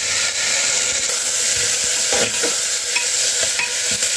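Sprouted peas and tomato sizzling steadily in hot oil and fried ginger-garlic paste in a pressure cooker. A spatula stirring them scrapes against the pot a few times in the second half.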